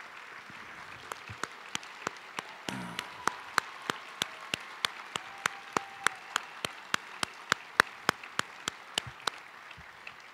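Audience applauding. One person's sharp, close hand claps, about three a second, stand out above the crowd's clapping and stop near the end as the applause dies away.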